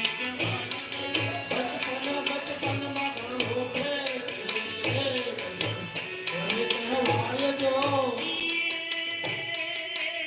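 Indian devotional song: a voice singing a winding melody over a steady hand-drum beat and jingling percussion.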